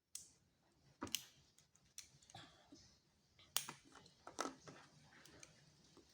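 Plastic Lego bricks clicking as they are handled and pressed together. There are several short sharp clicks, the loudest about a second in and again around three and a half and four and a half seconds in.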